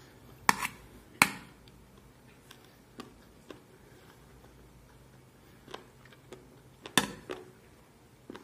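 Metal spoon clinking and scraping against a metal plate while eating: a few sharp clinks, the loudest near the start and about seven seconds in, with fainter ticks between.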